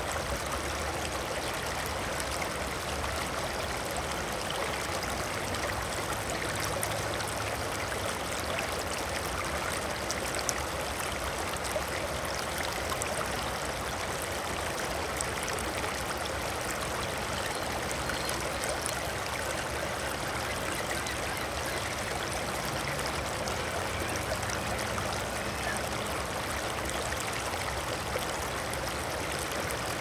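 Water flowing steadily: a continuous, even rushing and trickling that holds the same level throughout.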